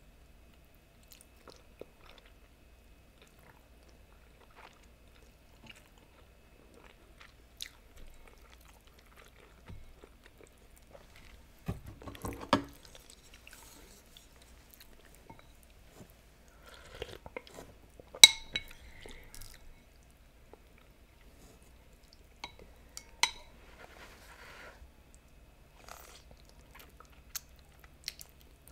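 Quiet, close-up eating of noodles with chopsticks: soft chewing and mouth sounds, broken by scattered sharp clicks of utensils against a ceramic bowl. The loudest click comes about two-thirds of the way through.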